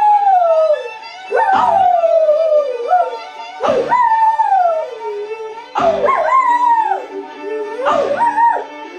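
Dog howling along to music playing in the room: a new howl about every two seconds, each jumping up sharply in pitch and then sliding slowly down.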